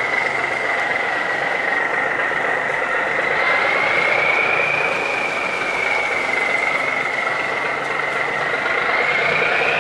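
Barge and boat diesel engines running, with a high whine that drifts slowly in pitch and climbs near the end.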